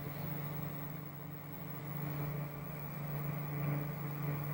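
Steady low hum with fainter higher overtones, even throughout, with no other events.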